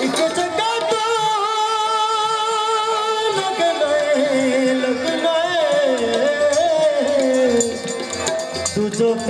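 Live Punjabi folk music: a melody held in long, wavering notes, with faint quick percussion ticks behind it.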